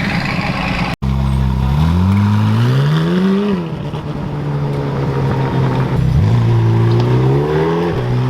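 A car engine revved twice, its note climbing for a second or two each time before falling back to a steady run. The sound drops out briefly about a second in.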